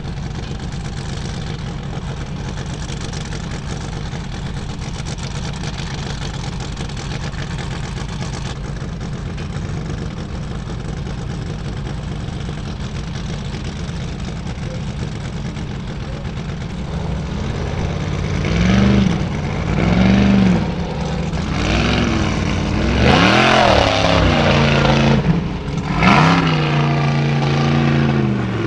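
A steady low engine rumble, then a Formula Offroad buggy's engine revving hard in repeated bursts, its pitch rising and falling as it climbs a steep dirt hill. The revving is the loudest part and begins about two-thirds of the way in.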